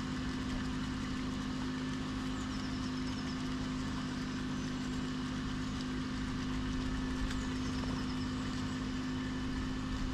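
A steady, even mechanical hum like an engine idling, with short high chirping phrases from a small bird three times over it.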